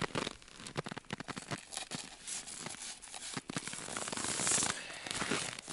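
Dry crackling and crunching of snow in deep frost as a frozen pike is hooked onto a spring scale and pulled up off the snow. The crackles come in quick irregular snaps, with a brief scraping hiss about four seconds in as the fish comes away from the snow.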